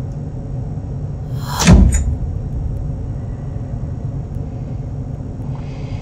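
Horror-film sound design: a low steady rumble, with a sudden loud hit about one and a half seconds in, a whoosh falling into a deep boom.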